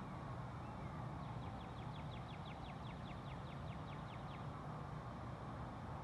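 A songbird's trill of about twenty quick down-slurred notes, about six a second, starting about a second in and lasting some three seconds. Under it is a steady low rumble of distant traffic.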